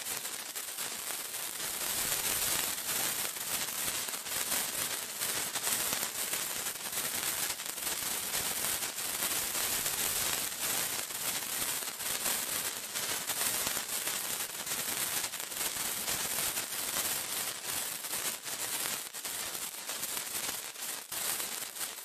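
Sparkler burning: a steady, mostly high-pitched fizzing hiss full of tiny rapid crackles.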